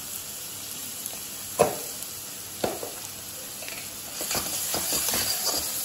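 Chopped garlic and dried red chillies sizzling in hot oil in a kadai, being fried until the garlic loses its rawness. A metal spatula clinks sharply against the pan twice, then the stirring and scraping pick up about four seconds in and the sizzle grows louder.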